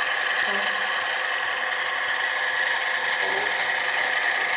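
Steady running noise of an H0 model train carrying an onboard camera along three-rail track: an even whine from the small motor and gearing, over the rattle of the wheels on the rails.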